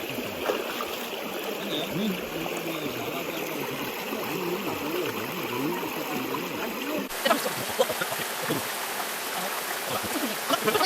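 Mountain stream water running and trickling over rocks, a steady rush; about seven seconds in the sound changes abruptly and closer splashing comes in.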